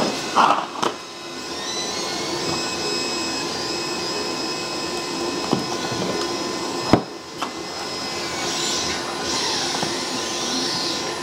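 A few sharp knocks and rustles from hands fitting Velcro-backed battery packs into a 3D-printed plastic model, the loudest knock about 7 seconds in. Under them is a steady whirring hum with thin tones that shift in pitch.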